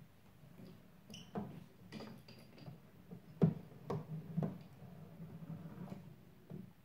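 Homemade wooden mechanism running: a steady low hum from its small electric gear motor and belt drive, under irregular wooden clicks and knocks from the moving sliders and linkages, the loudest about three and a half seconds in.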